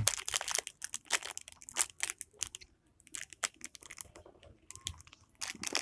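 Plastic packaging being handled, with irregular crinkling and sharp small clicks as it is opened and turned over.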